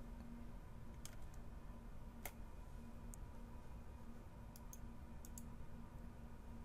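About eight faint, sharp clicks at a computer as the slideshow is closed, the sharpest about two seconds in, over a low steady hum.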